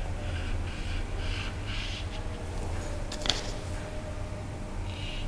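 A paintbrush making short, scratchy strokes on a painting, about three a second, with a single sharp click about three seconds in, over a steady low hum.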